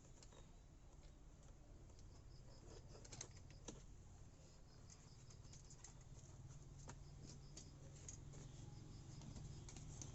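Near silence: faint scattered clicks and taps over a low hum, with short runs of a faint, high, evenly repeated chirping.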